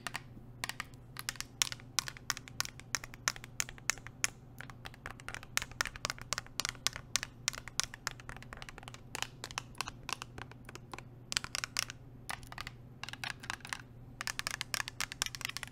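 Long nail-ring tips tapping quickly and irregularly on a water bottle, with a few short stretches of faster scratching along it near the middle and end.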